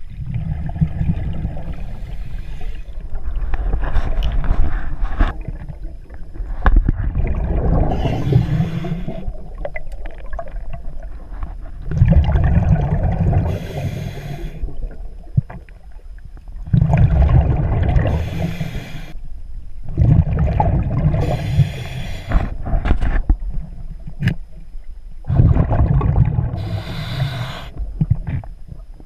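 Scuba diver breathing through a regulator underwater: a hissing, bubbling burst of exhaled air about every four to five seconds, over a steady low rumble of water moving past the camera housing, with a few sharp clicks.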